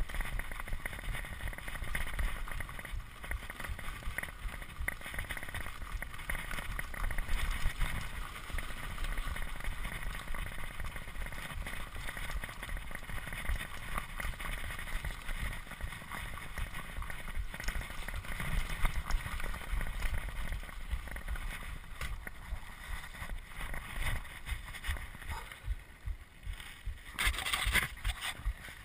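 Mountain bike ridden over a bumpy dirt singletrack, heard through an on-board action camera: a constant rumble of tyres on dirt with frequent rattling jolts of the bike, and wind on the microphone. A brief louder hiss comes near the end.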